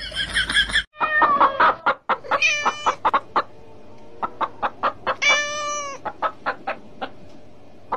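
Hen clucking repeatedly, about three short clucks a second, with a few drawn-out squawks among them, starting about a second in.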